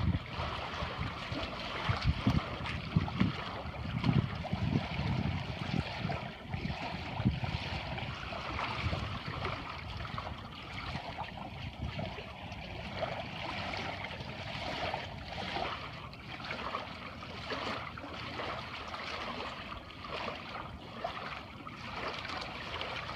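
Lake water lapping and splashing: a steady wash with many small, irregular splashes.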